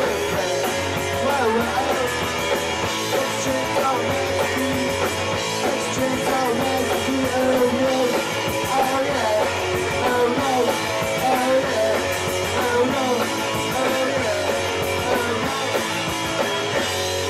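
Live punk rock band playing fast and loud: distorted electric guitars, bass and a drum kit with steady rapid cymbal hits, with some singing.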